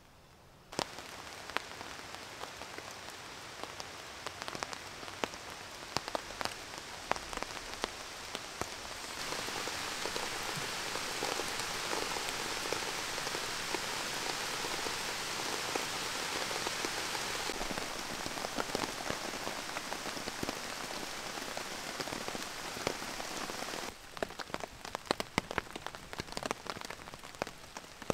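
Steady rain falling through forest foliage, with many separate drops tapping close by. Its strength changes abruptly a few times: louder through the middle, lighter again near the end.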